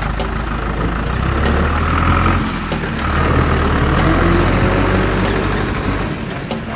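Heavy truck engine running with a low, steady rumble that grows to its loudest in the middle and eases off near the end.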